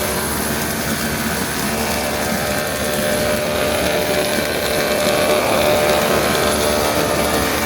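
Air bubble film extrusion line running in production: a loud, steady machine din of several constant hums over a broad hiss.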